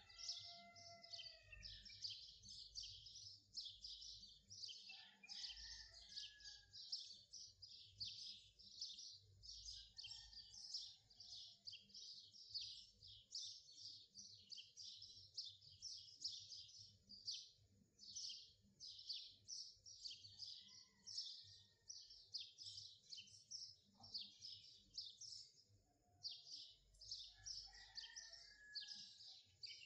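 Faint birdsong: a steady run of rapid, high chirps, several a second, with a few lower gliding calls now and then.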